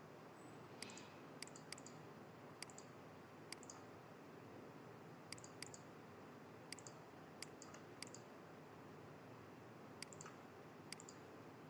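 Computer mouse clicking, about a dozen short, sharp clicks at irregular intervals, each a quick press-and-release, over faint hiss.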